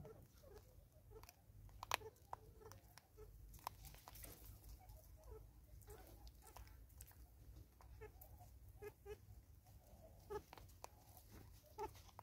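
Faint, irregular clicks and crunches of a vervet monkey picking at and eating seed from a ball of birdseed wrapped in green netting.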